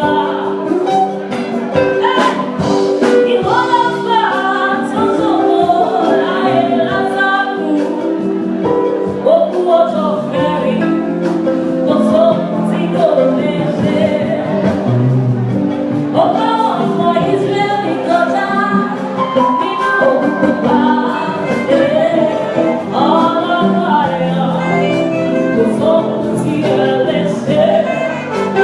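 Church choir singing a gospel anthem, several voices in harmony over held chords.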